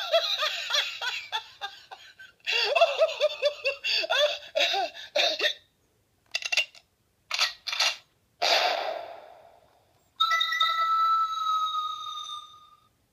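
Toy sound-effects machine playing one canned effect after another: two runs of quick rising-and-falling chirpy syllables, a few short separate blips, a burst of noise that fades away, then a steady held tone with overtones for a few seconds near the end.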